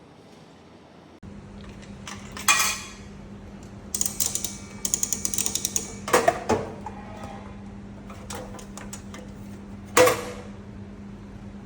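Metal gashapon capsule vending machine being worked by hand: a loud knock, then a fast run of ratchet clicks as the handle turns, and two more loud knocks, the last near the end. A steady low hum runs underneath.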